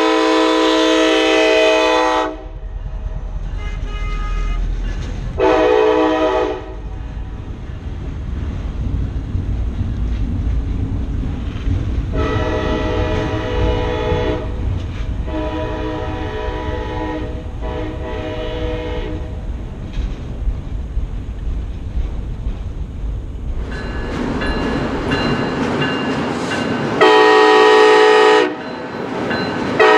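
An EMD SD70ACe-T4 locomotive's multi-chime air horn sounds a series of blasts: a long one at the start, a short one about six seconds in, a run of three in the middle, and two more near the end. Between the blasts the low rumble of the moving train carries on.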